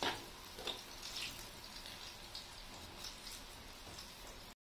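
Eggplant chunks deep-frying in hot oil in a wok: a steady sizzle with scattered light pops and crackles, the eggplant fried until cooked through.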